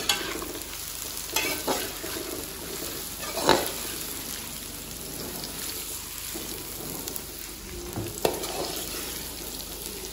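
Chopped carrots and onion sizzling in hot oil in a metal wok (karahi), stirred with a perforated metal spatula that scrapes and clinks against the pan several times. The loudest clink comes about three and a half seconds in.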